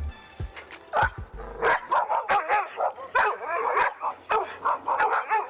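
Several dogs barking and yipping in quick, overlapping succession, starting about a second in. The pack is barking at an overexcited newcomer dog, showing they don't like his excitement level.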